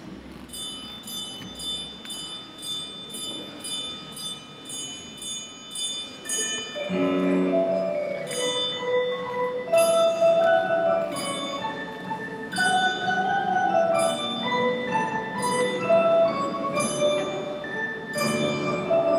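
A school instrumental ensemble playing a classical Christmas piece. It opens with a ringing, bell-like figure of repeated strikes, and about seven seconds in the fuller ensemble joins, louder, with a moving melody.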